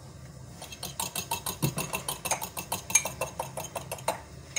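Metal fork beating egg and oil in a ceramic mug, with rapid clinking against the mug several times a second. It starts just under a second in and stops shortly before the end.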